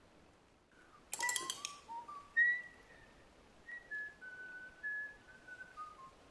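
A whistled tune: a slow run of clear, single notes, some held for about half a second, rising at first and then stepping downward toward the end. A brief clatter of clicks comes about a second in, as the whistling begins.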